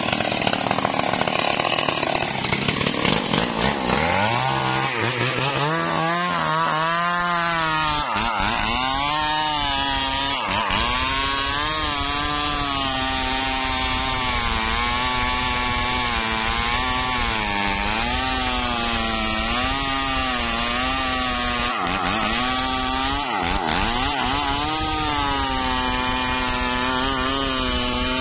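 Two-stroke Stihl chainsaw at full throttle, cutting into the base of a big rain tree (trembesi) trunk. The engine note sags under the load of the cut and picks up again several times.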